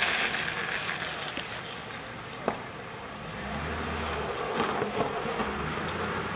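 Police cruiser pulling away from the roadside and driving off, its engine and tyres running on the road, with a low rumble partway through. A single sharp click about two and a half seconds in.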